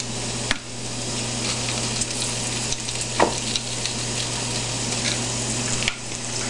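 Diced rutabagas frying in oil in a skillet on high heat: a steady sizzle, with a few light clicks.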